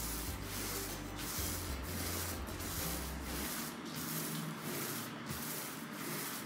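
Paint roller rolling wet epoxy primer across a countertop in steady back-and-forth strokes, a sticky rolling sound that stays even through each pass: the sign of an even coat with no thick spots.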